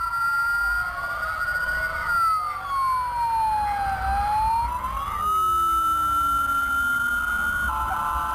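Emergency vehicle's electronic wail siren, holding a high tone, then sliding slowly down and back up again. A second, lower siren tone glides downward after about five seconds, over a low rumble of traffic or engine.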